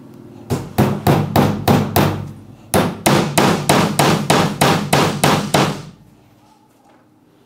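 Hammer driving small nails through a thin fibreboard back panel into the edges of a wooden cabinet. The blows come quickly, about four a second, in two runs with a short break between them, and stop about six seconds in.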